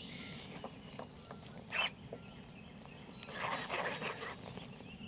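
Fishing reel's drag giving line in short zipping, clicking bursts as a hooked redfish pulls: one sharp burst about two seconds in and a longer run of clicks near the end, over a faint steady background.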